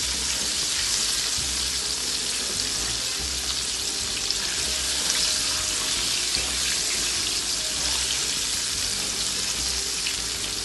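Battered shark cubes deep-frying in hot oil in a pot: a steady, dense sizzle with small crackles throughout.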